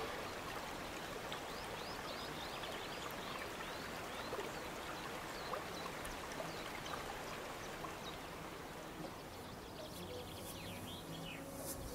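Stream water flowing and trickling steadily, with many small drips and plinks.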